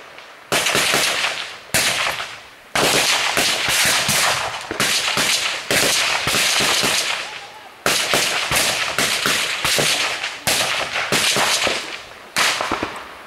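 Automatic gunfire in about eight long bursts, each starting sharply and fading away before the next.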